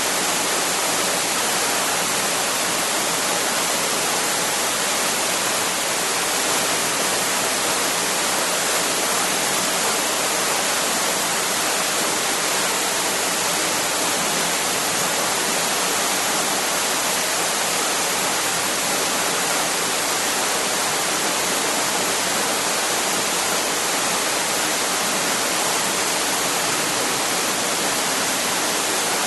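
Waterfall: water pouring and splashing in a steady rush that does not change.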